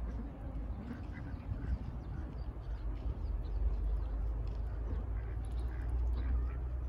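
Mallard ducks quacking intermittently, the calls faint over a steady low rumble.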